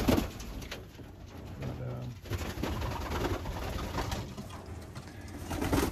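Domestic pigeons cooing in a loft, with a low, drawn-out coo about two seconds in. Two louder thumps, one at the very start and one near the end.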